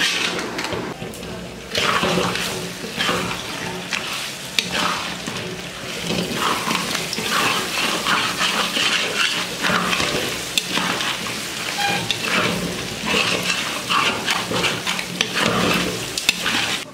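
Pieces of catla fish head frying in hot oil in a pan, with a steady sizzle that rises and falls and occasional clicks and knocks.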